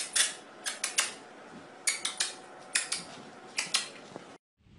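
Newspaper spread on the floor crackling under a corgi puppy, in short sharp bursts that come in quick clusters, about a dozen in all, cutting off suddenly near the end.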